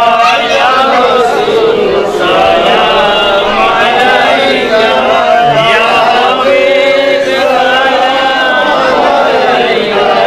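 Male voices chanting continuously in a melodic line, several voices overlapping, with no pauses.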